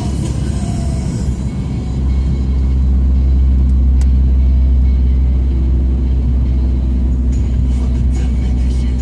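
Inside a moving car: steady low engine and road rumble while driving on a wet road, growing louder about two seconds in.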